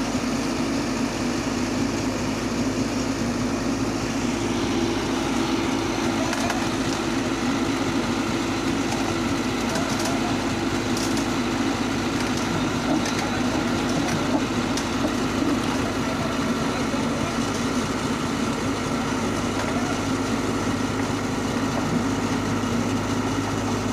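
Komatsu PC71 excavator's diesel engine running steadily, with a few light clicks in the middle.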